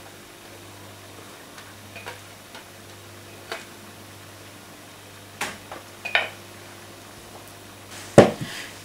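Scattered light clicks and taps of kitchen utensils: a silicone whisk scraping and tapping a saucepan while egg-yolk custard is poured into whipped cream in a stainless steel mixing bowl. A sharper knock comes near the end, over a faint steady low hum.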